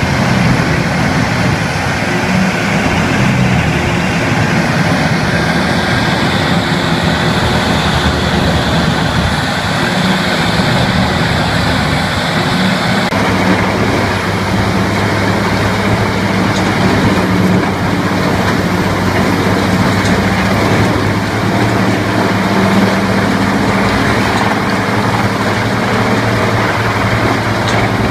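Heavy machinery engine running steadily under load, with dense mechanical noise over a low hum. The sound changes abruptly about halfway through.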